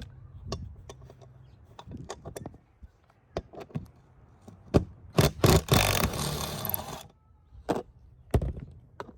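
Irregular knocks, clunks and clicks of hands-on work, most likely removing the heavy carpeted mat and cross members from the camper top. About halfway through comes a loud scrape lasting about a second and a half.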